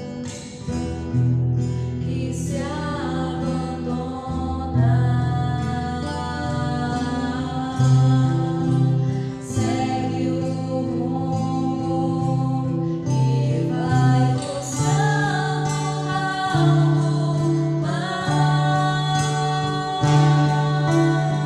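A song with singing over instrumental backing, gospel in style, with a steady bass line.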